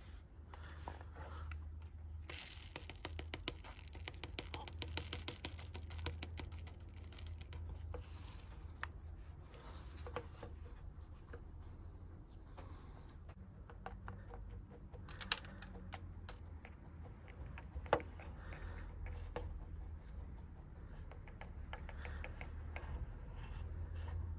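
Metal tweezers poking and pressing into coarse granular potting grit in a small ceramic pot: dense small clicks and scratches of grains shifting, busiest in the first third, with two sharper ticks later on. A steady low hum sits underneath.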